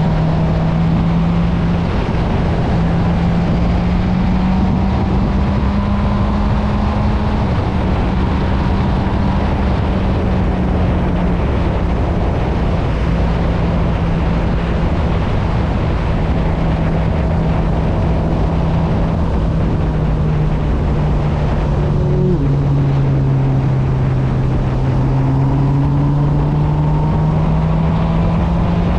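Honda CB1000R's inline-four engine running steadily while riding, its pitch shifting slowly with the throttle. About three-quarters of the way through the pitch drops at a gear change, then climbs again as it pulls.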